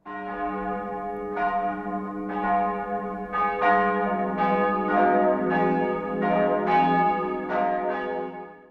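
Church bells ringing, a dozen or so overlapping strikes at roughly one to two a second, each tone ringing on under the next; the ringing fades out quickly near the end.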